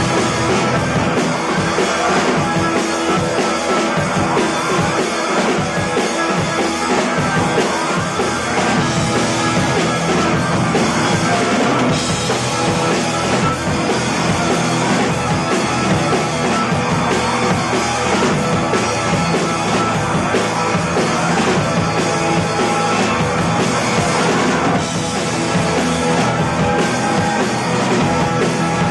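Rock band playing live, with a drum kit driving continuous loud music.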